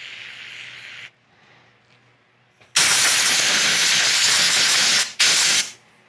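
Aerosol brake cleaner hissing through its straw into a spark plug hole for about a second. Then a compressed-air blow gun blasts the hole out, louder, with one long blast of about two seconds and a short second one.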